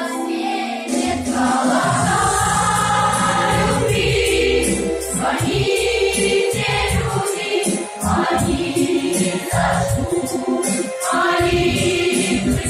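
A choir singing, in sustained phrases that change every second or two.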